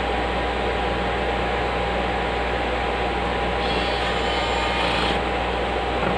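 Steady whoosh of running cooling fans with a constant mid-pitched hum. A faint high-pitched whine joins in briefly, from about three and a half to five seconds in.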